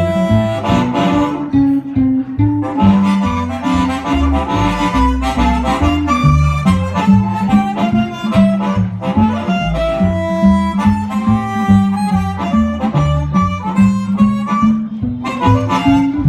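Live blues band playing an instrumental break: a harmonica solo over electric guitar, bass and drums keeping a steady beat.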